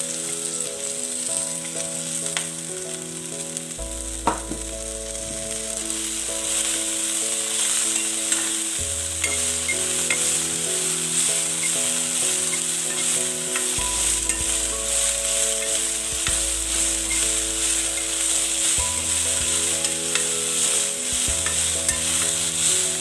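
Chopped coriander leaves sizzling in hot oil with green chillies and garlic in a kadai, stirred with a spatula that scrapes and taps against the pan. There is a sharp tap about four seconds in.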